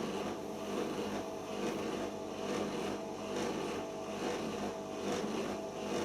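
Siemens iQ washing machine in its anti-crease final spin, the drum turning steadily with a regular swishing pulse about once a second.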